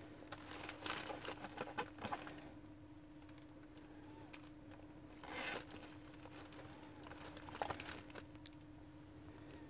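Faint eggshell handling while egg whites are separated from the yolks: scattered light crackles and clicks in the first two seconds, a short crackle about five seconds in, and a single click near the end, over a faint steady hum.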